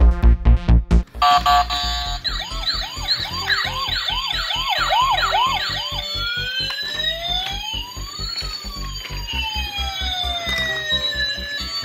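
Toy police car's electronic siren through its small speaker, switching on about a second in: first a fast yelp, about two to three rises a second, then from about halfway a slow up-and-down wail with two tones gliding past each other. A steady music beat runs underneath.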